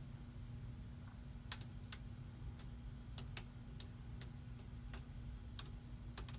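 Faint, irregular clicks and ticks, about ten in six seconds, as a paint-coated foam tile is handled and tilted over crinkled aluminium foil, over a steady low hum.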